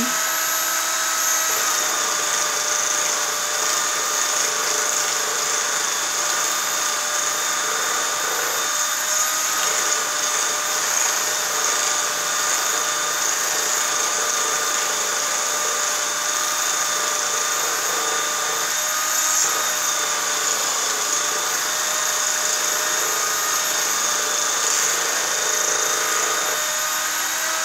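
Electric motor of a homemade metal forming machine running steadily with a high whine while a copper leaf blank is pressed against its spinning wheel. The whine drops slightly in pitch about a second and a half in and rises back near the end, and a softer rubbing sound from the copper on the wheel comes and goes.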